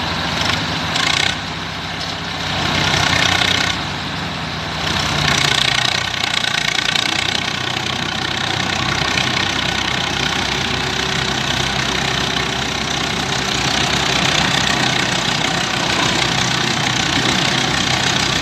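Heavy tractor engines running under a tug-of-war pull, with the sound swelling louder twice in the first few seconds and then holding steady.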